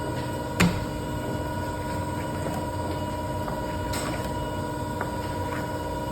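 Steady mechanical hum with several fixed tones, broken by one sharp knock a little over half a second in and a few fainter clicks near the middle.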